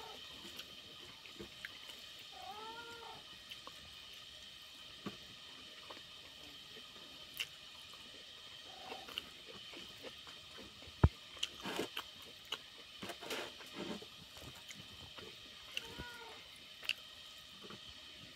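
A cat meowing, several short calls rising and falling in pitch: at the start, about three seconds in and again near the end. Between them come soft clicks and taps of fingers working rice on a steel plate, the sharpest about eleven seconds in.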